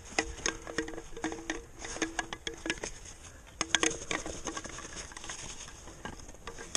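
Gloved hand sweeping and scraping fresh snow off snowed-up rock to find hand and foot holds: a run of crunches, scrapes and short knocks, some louder than others.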